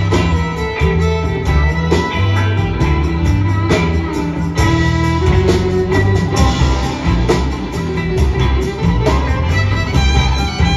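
Live acoustic-electric string band playing an instrumental passage: fiddle and electric guitar over banjo, upright bass and a drum kit keeping a steady beat.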